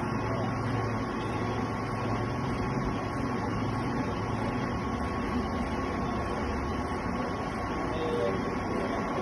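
Metalworking machine tool running steadily, a constant high whine over a low hum.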